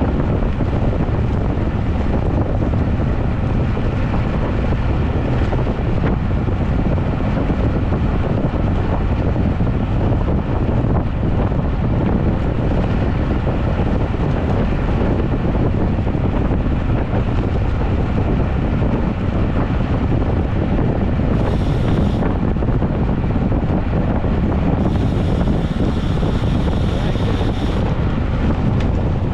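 Wind rushing over the microphone of a camera on a road bike moving at over 20 mph, a loud, steady noise heavy in the low end. Twice in the last third a thin high buzz briefly joins in.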